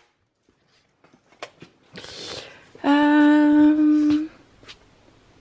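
A woman humming one steady 'hmm' note for about a second and a half while deciding, after a few faint clicks and rustles of bags being handled.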